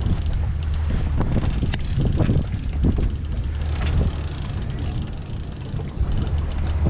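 Boat engine running steadily at trolling speed, a low hum, with wind buffeting the microphone and a few scattered knocks.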